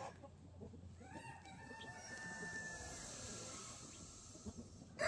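A rooster crowing faintly: one drawn-out crow of about two seconds, starting about a second in.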